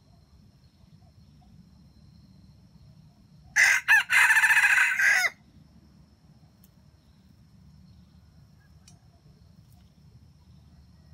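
Red junglefowl rooster crowing once, about three and a half seconds in: a loud crow of under two seconds, two quick opening notes and then a longer held ending.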